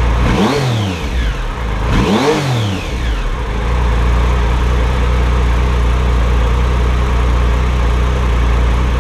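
2005 Triumph Sprint ST 1050's three-cylinder engine, fitted with a TOR exhaust and running with its airbox off, blipped twice in the first three seconds, each time revving up and dropping straight back, then idling steadily. The blips test how quickly the idle returns after the throttle bodies have been balanced.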